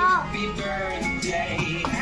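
Background music with a singing voice; a held sung note ends just after the start.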